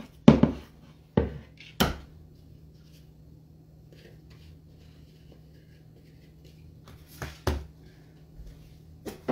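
Dough and a wooden bowl being handled on a wooden board with floured hands. There are sharp knocks and thumps, three in the first two seconds and three more near the end, over a faint steady hum.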